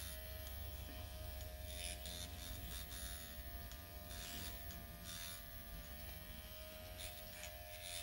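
Dr. Pen electric microneedling pen buzzing steadily as its needle tip is worked over the skin of the chin, with a few faint scratchy ticks.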